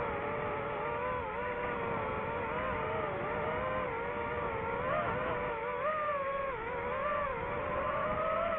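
DJI FPV drone's motors and propellers whining, the pitch rising and dipping as the throttle changes.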